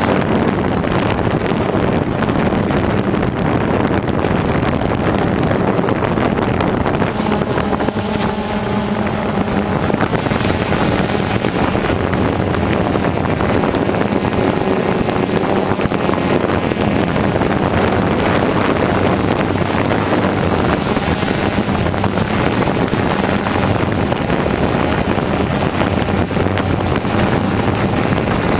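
DJI Phantom quadcopter's motors and propellers buzzing steadily in flight, a continuous drone with a steady pitch, mixed with wind rushing over the microphone.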